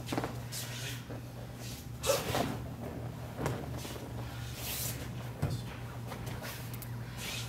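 An aikido partner taking a fall onto the dojo mat, a sharp thump about two seconds in, with softer thuds and shuffles of feet on the mat around it. A steady low hum runs underneath.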